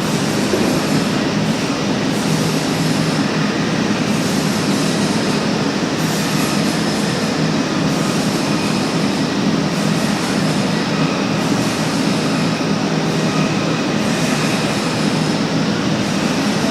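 Lotze CNC press brake running with a steady, even machine hum and rumble, no separate strokes.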